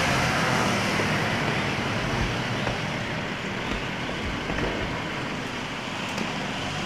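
Wind rushing over a phone microphone on a moving motorcycle, with the engine and road noise running steadily underneath.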